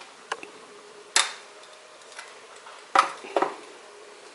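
A few separate light clinks and knocks of painted metal roof rack parts being handled, spaced irregularly, with the loudest about three seconds in.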